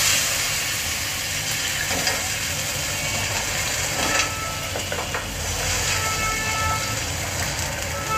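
Water poured into a hot steel karahi of browned onions and oil, hissing loudly as it hits, then settling into a steady sizzle. A wooden spatula stirs and scrapes against the pan a few times.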